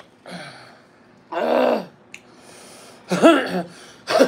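A person clearing their throat with one long harsh rasp in the middle, among short breathy and voiced sounds, from the burn of hot chili peppers.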